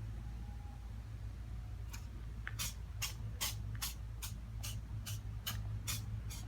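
A cat sneezing repeatedly in a rapid fit, about eleven short, sharp sneezes at roughly two and a half a second, starting about two seconds in.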